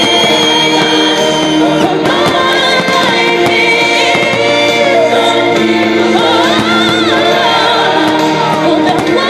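Choral music: a choir singing long held notes, with some lines sliding between pitches.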